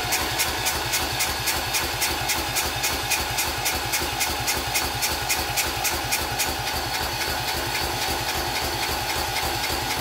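Kohler Courage 20 engine of a Cub Cadet LT1045 lawn tractor being cranked by its electric starter with the choke on: a steady, fast, even cranking beat with a starter-motor whine, the engine not firing. Fuel is only just reaching the newly replaced carburetor.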